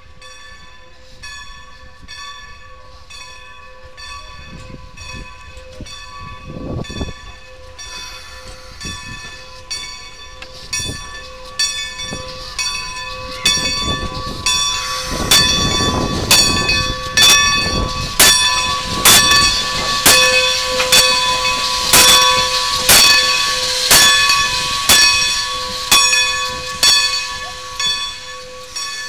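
Baldwin 2-10-0 Decapod steam locomotive No. 90 ringing its bell steadily, about one strike a second, growing louder as the engine draws close. A rush of steam is heard about halfway through.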